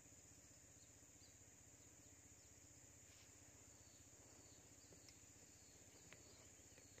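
Near silence, with a faint steady high-pitched insect drone.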